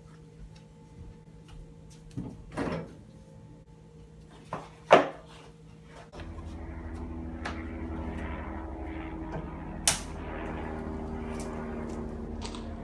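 Kitchen cupboard doors being opened and shut: a few knocks and a sharp bang about five seconds in. After about six seconds a steady low hum takes over, with one more sharp click.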